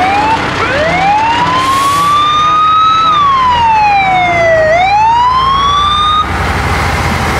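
Fire engine siren wailing: one tone that rises slowly, falls, rises again and cuts off suddenly about six seconds in. Heavy truck engines run underneath and come forward once the siren stops.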